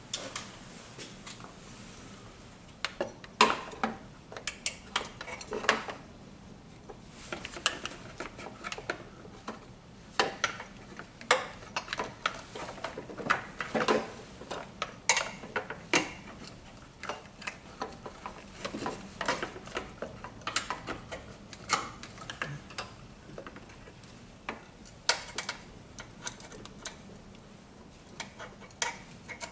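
Irregular metallic clinks and knocks as the battery's metal hold-down bracket and hand tools are handled in the engine bay, with quieter pauses between them.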